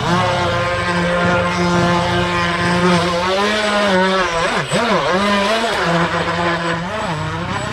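Battery-powered RC speedboat's electric motor and propeller whining at speed on the water. The pitch dips and rises several times as it turns and throttles, most deeply around the middle.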